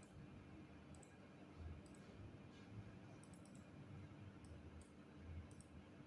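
Faint computer mouse clicks, a handful spread irregularly, some close together, over a faint steady room hum.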